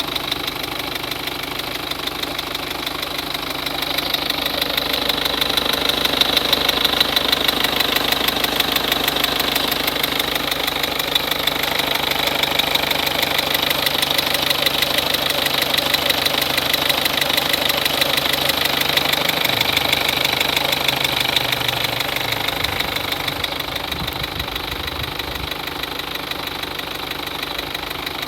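Peugeot 206 1.4 HDi four-cylinder turbodiesel engine running, with a fast, regular tic-tic-tic over the diesel clatter. The ticking comes from leaking fuel-injector seals; it went away once they were replaced.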